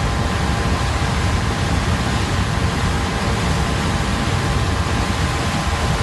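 Raging, debris-laden floodwater rushing in a river: a steady roar with a heavy low rumble.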